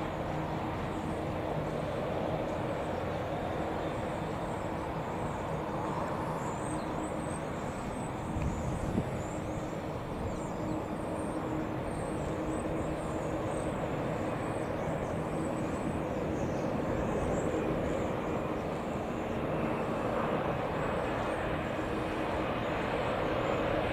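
Boeing 787 airliner on final approach, its jet engines running at low approach power with a steady rumble that grows louder near the end as the aircraft closes in.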